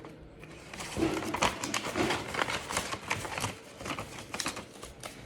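Rustling and crinkling of a Pokémon card pack's wrapper and cards being handled, a quick run of small crackles.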